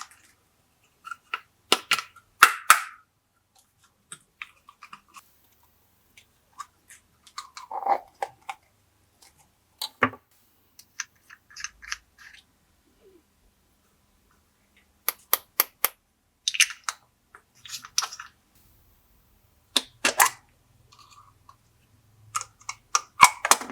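Glossy slime being pressed and stretched by hand, giving off irregular clusters of sharp clicking pops with short quiet gaps between them.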